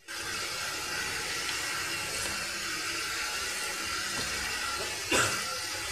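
Sliced onions sizzling steadily in hot oil in a kadai while a wooden spatula stirs them, freshly added and frying towards golden. One brief louder sound comes about five seconds in.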